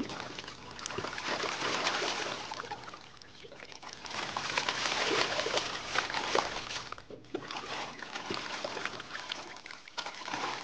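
Underwater bubbling and gurgling sound effect: a fizzing, crackly water noise that swells up twice and then settles lower.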